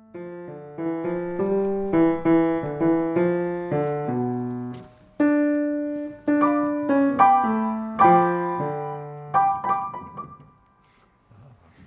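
Piano playing a simple melody over lower notes, each note struck and dying away, at an unhurried pace; it stops about ten seconds in.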